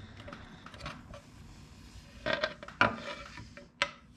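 Cast-aluminium right-side engine cover of a 125cc ATV engine being worked loose by hand and pulled off the crankcase: a few metal knocks and scrapes, the sharpest near three and four seconds in.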